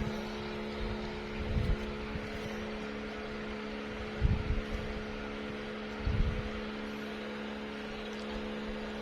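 Steady low mechanical hum of a running motor, with a few dull low thumps.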